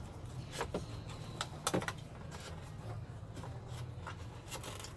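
Scattered light clicks and rustles of the inflator's power cable being handled and stuffed into its storage pouch, a small cluster of knocks about a second and a half in, over a steady low hum.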